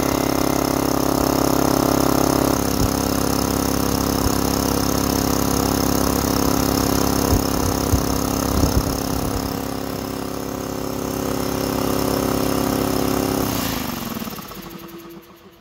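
DeWalt DXCM601 air compressor's electric motor and pump running steadily on its first power-up. Near the end it is switched off and spins down, its pitch and level falling away.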